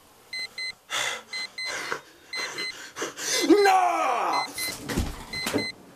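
An alarm clock beeping in quick pairs of high electronic beeps, about one pair a second, without stopping. About three and a half seconds in, a man gives a loud, falling yell over the beeping, the loudest sound here, and there are a few thumps.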